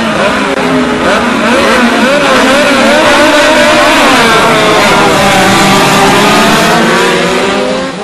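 Several midget race car engines revving together on the grid, their pitches rising and falling over one another. They grow louder through the middle, and the sound drops off sharply near the end.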